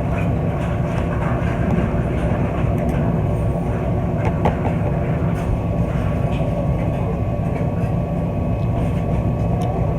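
Steady low mechanical rumble with a faint constant hum over it, unbroken throughout, with a few light clicks.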